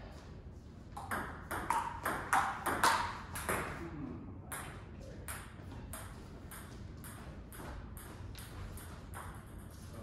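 Table tennis rally: the celluloid-type ball clicking off paddles and table top in a quick, regular run of sharp ticks, loudest between about one and four seconds in.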